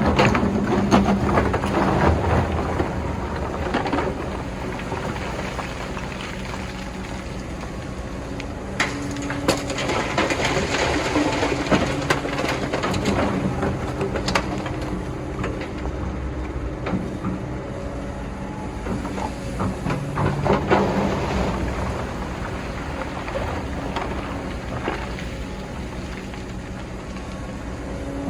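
Excavator diesel engine running, rising and falling with load. Over it come noisy stretches of grinding and rattling from the bucket working sand, loudest near the start, in the middle and about two-thirds through.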